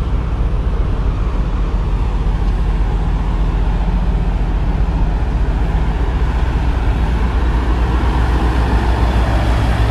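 Wind buffeting the camera microphone: a loud, steady low rumble.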